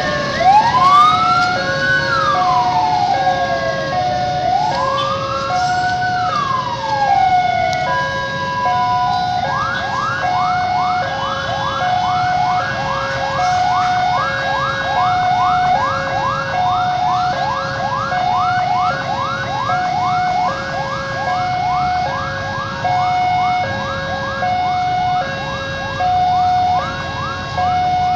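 An electronic siren, apparently on a railway service car's roof. It wails twice in slow rising and falling sweeps, then switches at about nine seconds to a fast yelp of about three sweeps a second. Under it a level-crossing alarm alternates steadily between two notes.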